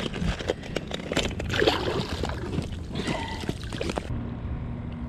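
Water splashing and trickling as a small redfish is let go into shallow water, with crackling handling noise.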